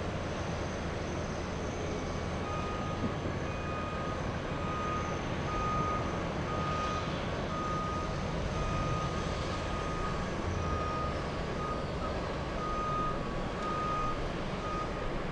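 Airport ground vehicle's reversing alarm beeping over and over, a short high beep that starts about two and a half seconds in, over a steady low rumble of apron traffic.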